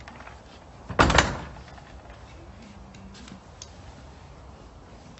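Stable box door banged shut once, about a second in.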